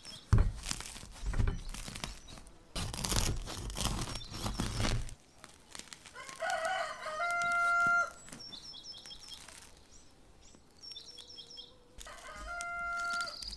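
Crisp sourdough crust crackling and crunching as the loaf is broken open by hand. Then a rooster crows twice, a few seconds apart, with small birds chirping in between.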